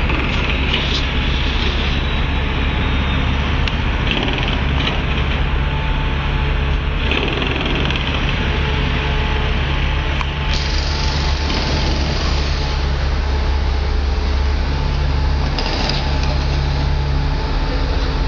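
Busy city street traffic: a steady drone of vehicle engines with a low, continuous hum.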